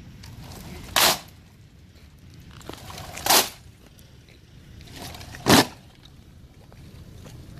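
Three sharp, loud impacts from soldiers' drill movements, executed in unison about two seconds apart.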